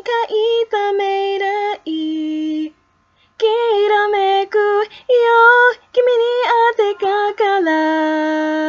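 A solo female voice singing a Japanese pop song a cappella, with no accompaniment. She sings short phrases, breaks off briefly about a third of the way in, and near the end holds one long, lower note.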